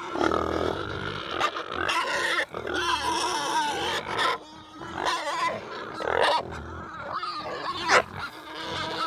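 An animal calling, a string of irregular calls with short gaps and a sharper, louder one near the end.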